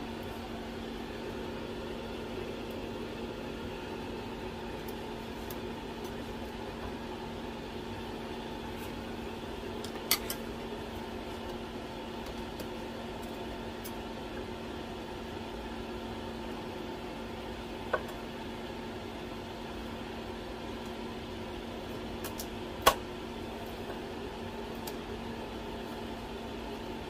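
Steady electrical hum of a running 946C 850 W SMD hot plate, a few constant tones over a low hiss. Three sharp clicks cut through it, about ten, eighteen and twenty-three seconds in, the last the loudest, as metal tweezers touch the circuit board.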